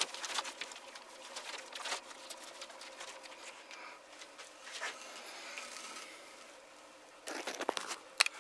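Plastic sheeting and a felt wicking mat being handled, crinkling and rustling in irregular small crackles, with a louder burst of rustling near the end.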